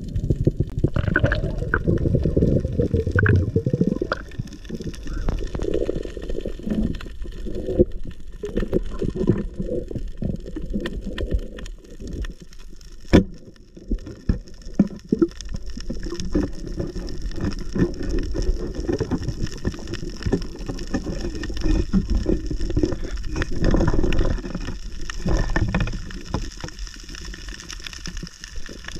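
Muffled underwater noise of water moving and gurgling around a camera in the sea, with uneven low rumbles and a single sharp click about thirteen seconds in.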